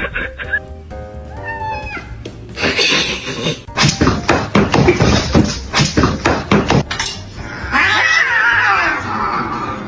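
Cats yowling in drawn-out, wavering calls over background music with a steady beat. In the middle there is a loud, harsh, noisy stretch lasting a few seconds.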